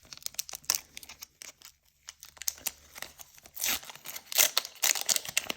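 Foil wrapper of a Pokémon TCG booster pack being torn open and crinkled by hand: a run of quick crackles and rustles, busier and louder in the second half.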